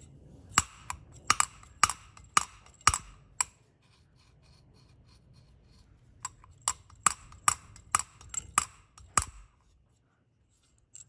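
Steel valve tapped repeatedly against its freshly cut seat in a cast-iron Mini cylinder head, to check how it sits. Sharp metallic clicks about two a second, in two runs of seven or eight with a pause of a few seconds between.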